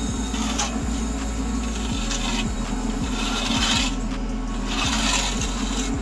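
Hand trowel scraping over fresh cement mortar in a few separate strokes, the longest about three and a half seconds in, over background music with a steady low beat.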